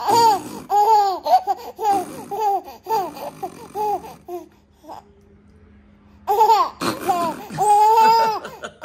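Ten-month-old baby laughing in a run of short, high-pitched bursts. The laughter stops for about two seconds after four seconds, then resumes near the end with a longer held note.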